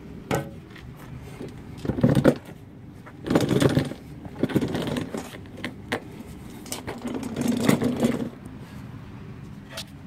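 Handling noise: a camera phone rubbing and scraping against clothing as it is moved about, in several irregular bursts with a few sharp clicks.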